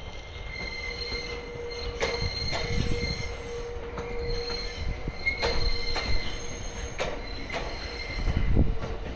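A train rolling past slowly, with a steady high wheel squeal and a series of sharp clacks over rail joints; the low rumble swells near the end.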